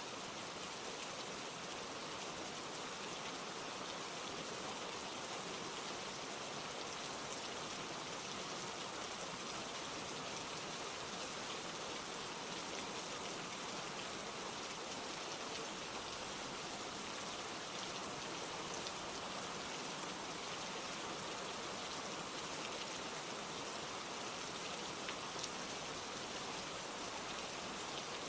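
Steady rain falling: an even hiss with faint scattered drops ticking through it.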